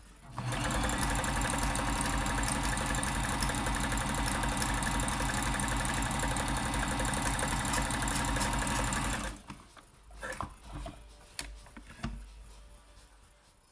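Janome Combi DX 502 sewing machine running steadily at speed, sewing a straight stretch stitch, for about nine seconds before stopping abruptly. A few light clicks and knocks follow as the fabric is handled at the needle.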